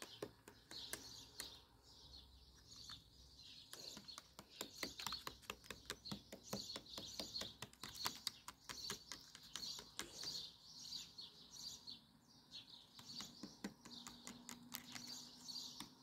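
Metal teaspoon stirring sugar into plain yogurt in a plastic pot, with rapid light clicks and scrapes of the spoon against the pot's sides. Birds chirp faintly in the background.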